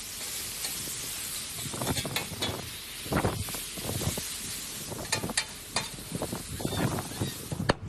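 Diced ribeye sizzling on a hot griddle: a steady hiss with scattered clicks and taps. The sizzle cuts off just before the end.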